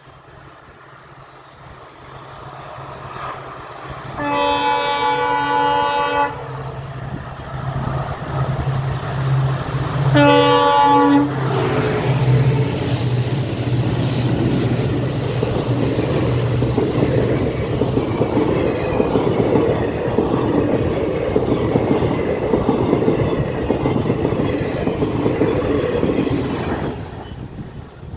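Indian Railways diesel locomotives (a WDP4D with twin WDM3D Alcos) humming as they start a passenger train, sounding a multi-tone horn twice, a two-second blast then a shorter one. The train then rolls past loudly with the engines running until the noise drops away near the end.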